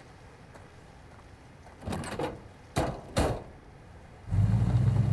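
Ford pickup truck door opened and shut, with two sharp knocks a little under half a second apart, then the truck's engine starting about four seconds in and running steadily with a low hum.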